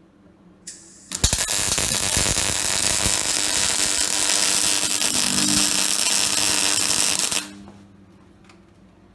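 MIG welding arc crackling and sizzling steadily for about six seconds while tacking steel parts together, then cutting off abruptly. A brief hiss comes just before the arc strikes.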